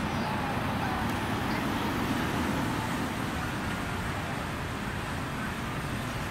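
Ram pickup-based fire engine rolling slowly by, its engine and tyres giving a steady low rumble.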